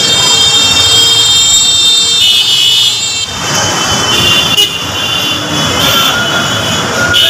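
A high-pitched vehicle horn held for about three seconds, then city street traffic with shorter horn toots.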